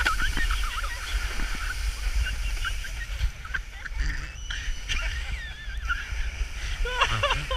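Low rumble of wind and snow on a body-worn camera's microphone as a snow-sled rider slides and tumbles on the slope. Faint high-pitched children's shouts come through, with a voice near the end.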